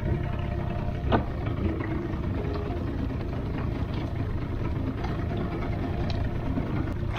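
Fishing boat's engine idling steadily, with a single sharp knock about a second in.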